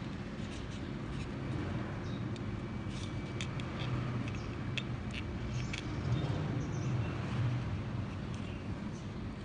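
A steady low background rumble, with faint scattered clicks and ticks from fingers handling a treble hook and fishing line threaded through a piece of banana bait.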